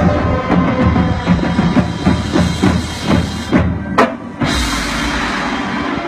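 Marching band percussion playing a drum passage: quick successive drum hits, then a short break and a single accented hit about four seconds in, followed by a sustained wash of sound.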